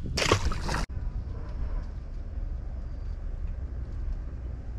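A short burst of hissing noise for under a second that cuts off abruptly, then a steady low outdoor rumble.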